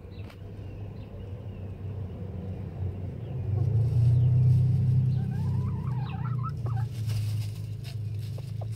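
Chickens in a coop giving a run of soft, wavering clucks and trills about halfway through. Under them is a steady low hum that grows louder in the middle.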